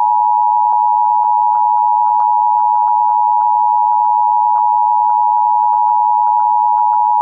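Emergency Alert System attention signal: the steady two-tone alert (853 and 960 Hz together) sounding loudly, then cutting off suddenly about seven seconds in, which marks the start of a civil emergency message.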